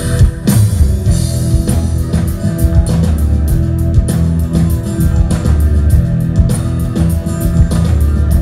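Live rock band playing an instrumental passage: guitars, bass guitar and drums at a steady beat.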